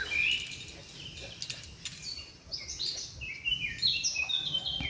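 Small songbirds singing: runs of short, high chirping notes that step downward in pitch, busiest in the second half. A few light metallic clicks of carabiners as a sling is handled on them.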